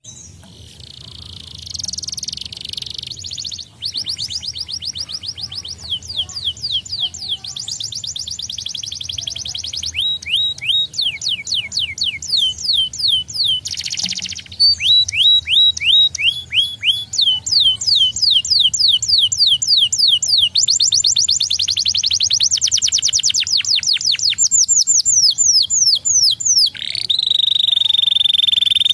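A domestic canary singing a long song of rapid trills. Each run repeats one short note many times a second, some notes sweeping downward, and the runs change every few seconds. Near the end it holds a long steady whistle.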